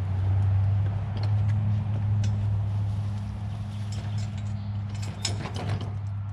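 A steady low mechanical hum. About five seconds in, a short clatter and rattle as a wheelbarrow of compost is tipped into a wooden raised bed.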